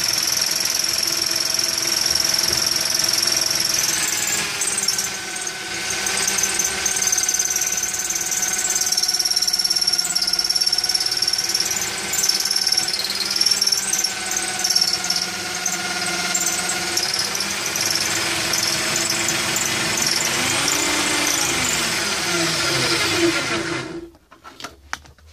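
Corded electric drill driving a homemade wood lathe, running steadily with a high whine whose pitch wavers, then switched off and cut off abruptly about 24 seconds in.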